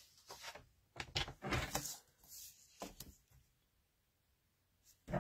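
Patterned card stock being handled on a paper trimmer: a few soft knocks and rustles as the strip is slid and lined up against the trimmer's rail, then near quiet for the last couple of seconds.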